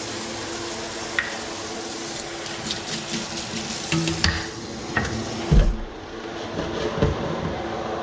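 Pigeon peas sizzling in a hot pan with a splash of their own liquid, with knocks and scrapes of a utensil against the pan. The sizzle drops away almost six seconds in, leaving a steady low hum.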